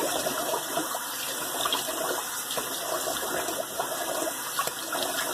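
Cold water running steadily from a tap into a sink, with some splashing as the face is rinsed.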